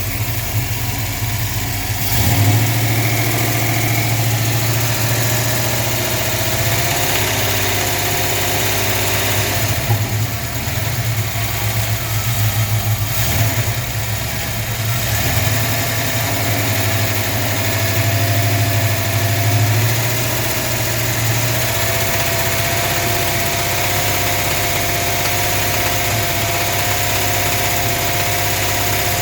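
Dodge Dart engine running with a knock whose cause is in doubt, the revs rising and falling a few times.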